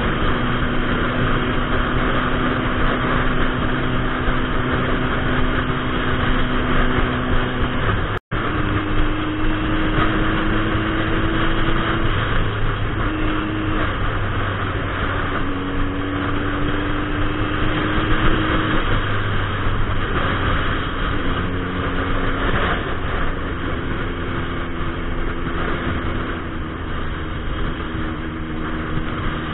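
Turbocharged 2006 Suzuki Hayabusa inline-four running on the road, its engine note climbing slowly several times under gentle acceleration, with wind rushing over the helmet-mounted microphone. The sound cuts out for an instant about eight seconds in.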